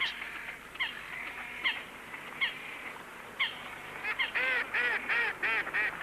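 A water bird calling: about five short, sharp down-slurred notes roughly a second apart, then, near the end, a quicker run of about six arched, honking notes, about three a second.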